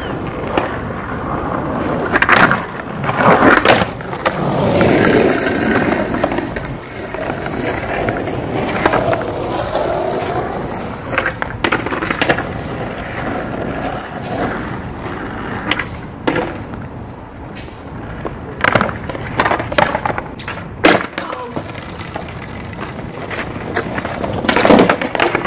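Skateboard wheels rolling on rough concrete, broken by repeated sharp clacks as the wooden board strikes the ground, in clusters every few seconds.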